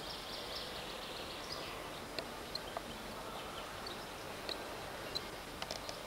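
Outdoor ambience: a steady hiss with a few short, high chirps scattered through it and some faint clicks near the end.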